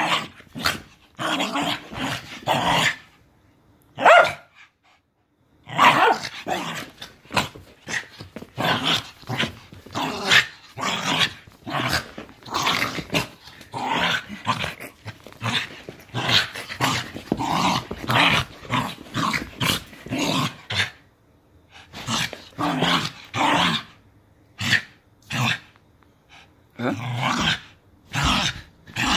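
Small shaggy dog growling and barking in excited play, a rapid string of short growls and barks with a few brief pauses.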